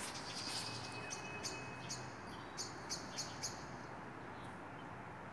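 A small bird chirping outdoors: a string of short, high chirps, some close together, over a faint steady background hiss. A single sharp click sounds right at the start.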